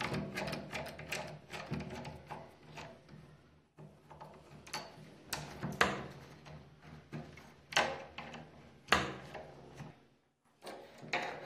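Metal clicks, scrapes and rattles from a screwdriver turning out the mounting screws of a cylindrical door lock while the loosening lock body is handled. The clicks come irregularly, with a few sharper ones in the second half.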